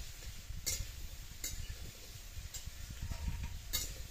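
Metal spatula knocking and scraping against an iron kadai about four times, roughly a second apart, as raw potato and spiny gourd pieces are stirred, with a low rumble underneath.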